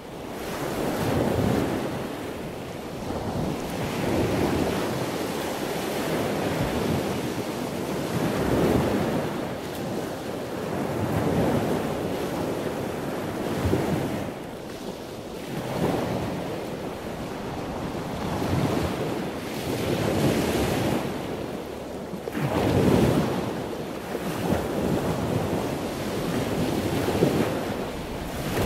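A steady rushing noise like surf that swells and ebbs every few seconds.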